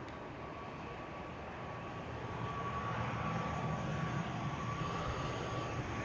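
Jet airliner engines approaching, a low rumble that grows louder from about two seconds in over a steady high whine.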